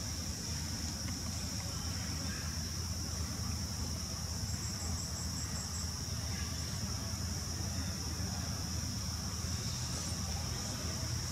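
Steady high-pitched drone of insects, with a low rumble underneath. About halfway through, a quick run of about seven high chirps.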